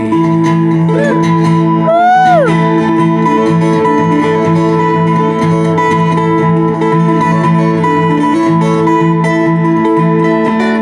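Acoustic guitar playing an instrumental break in a folk-country picking style, with a steady repeating bass line under the melody. A brief sliding note rises and falls about two seconds in.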